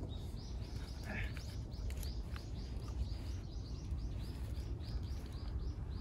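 A bird singing a rapid series of short, high, repeated notes, about four a second, over a steady low background rumble.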